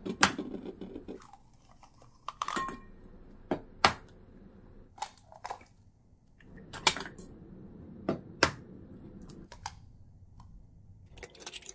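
Raw eggs being cracked open one after another: a series of sharp taps and clicks of eggshell breaking, spaced a second or two apart.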